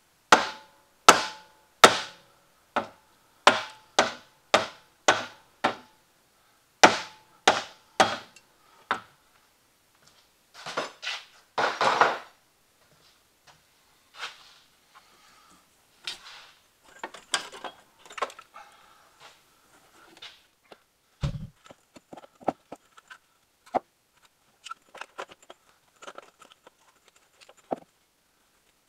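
A hammer striking metal: about a dozen sharp ringing blows over the first nine seconds, then a short scraping and scattered lighter clanks and rattles of tools on metal, with one dull thud about two-thirds of the way in.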